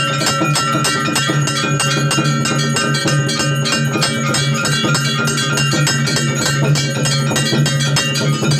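Hindu temple aarti bells and percussion clanging in a fast, continuous beat, with ringing bell tones over a steady low drone.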